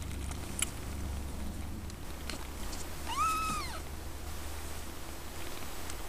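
A 15-day-old Siamese kitten gives one short, high mew, rising then falling, about three seconds in, over a steady low purring. A few faint clicks come before it.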